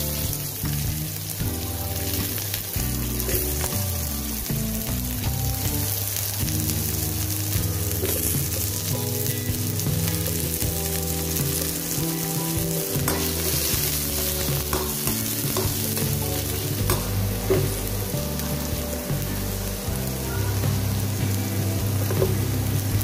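Chopped onions sizzling steadily in hot oil in a wok as they are sautéed and stirred, with a few light clicks partway through.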